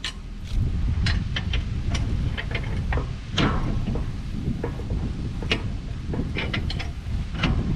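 A pickup truck's engine running with a steady low rumble, with irregular sharp clicks and knocks scattered over it.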